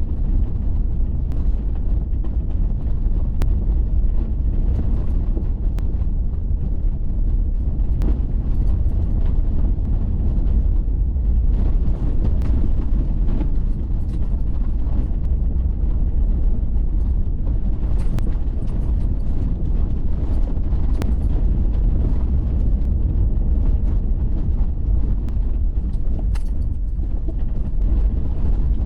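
Waterfall: a steady, loud rush of falling water, heaviest in the low rumble.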